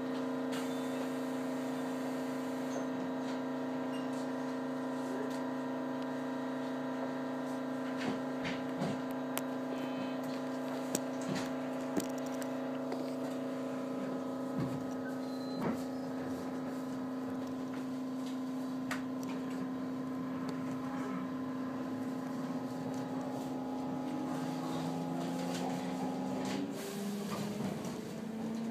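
Inside a 213-series electric train while it runs: a steady hum made of several tones, with scattered clicks around the middle. Near the end the main tone stops and a new one rises in pitch.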